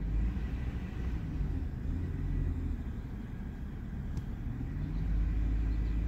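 BMW N52 inline-six engine running, with its speed rising about four to five seconds in. It runs smoothly at this moment, without the rough-idle misfire it is being diagnosed for.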